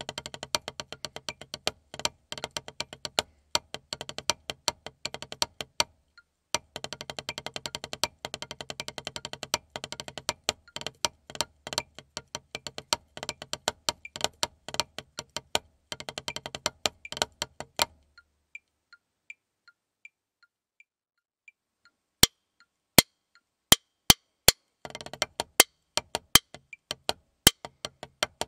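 Wooden drumsticks playing rudimental snare drum solos on a rubber practice pad, with rapid strokes and accents. The playing stops about 18 seconds in, leaving only faint regular ticks for about four seconds. It then starts again with a few loud, widely spaced single strokes that build into fast sticking.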